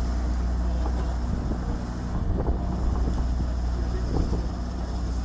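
Kioti CK35 compact tractor's three-cylinder diesel engine running steadily while driving a rear-mounted Kersten sweeper brush over dirt, with a few light knocks in the middle.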